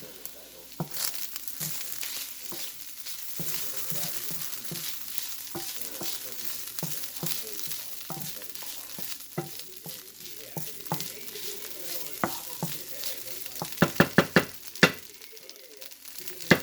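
Food sizzling in a Calphalon frying pan as it is stirred, with scattered clicks of a utensil against the pan and a quick run of louder taps near the end.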